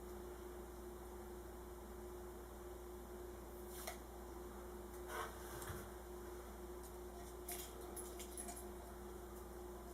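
Faint steady electrical hum, with a few soft clicks and scrapes from small parts being handled while wires are worked on.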